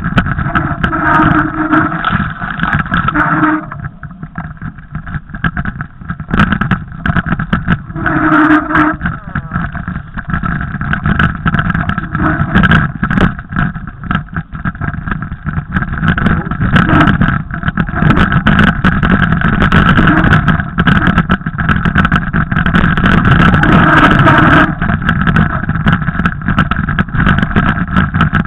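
Mountain bike riding noise over a rough snowy trail: a steady loud rumble with frequent rapid rattles and knocks as the bike jolts, easing off for a few seconds twice.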